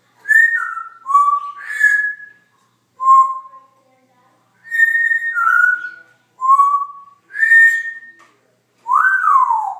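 Congo African grey parrot whistling a series of clear notes in short phrases, mostly a higher note dropping to a lower one, ending in a note that swoops up and then down.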